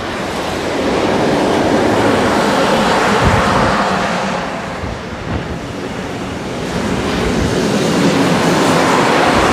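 Freight train wagons rolling past on the rails, a steady loud rumble and rattle of wheels on track.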